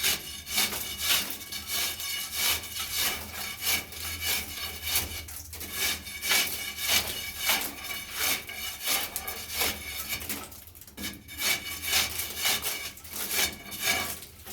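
Crowbar scraping paint off a plastered wall in quick repeated rasping strokes, stripping the painted layer, with a brief pause about ten seconds in.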